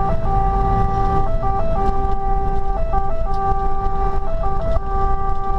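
Fire engine siren sounding from inside the cab: a held note broken by quick steps between pitches, the pattern repeating about every second and a half, over the truck's engine and road rumble.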